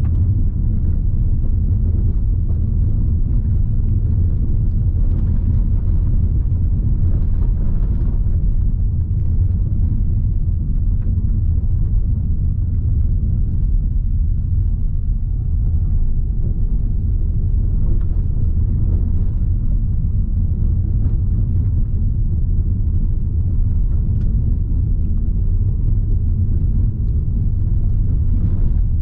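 A 2018 Audi Q3 with a 1.4-litre petrol engine, driving on a rough, unpaved road: a steady low rumble of engine and tyres.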